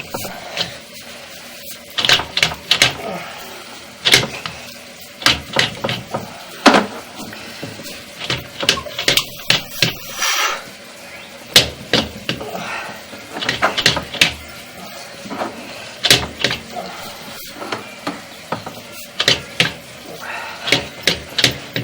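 Irregular sharp knocks and clacks, several coming in quick clusters of two or three, with quieter rustling handling noise between.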